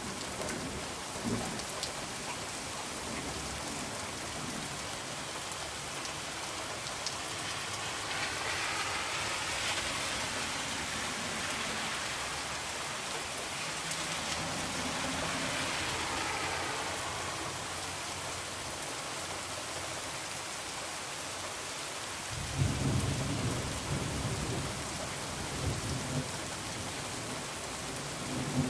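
Heavy rain falling steadily, swelling for several seconds around the middle, with a low rumble of thunder starting about 22 seconds in and rolling on for a few seconds.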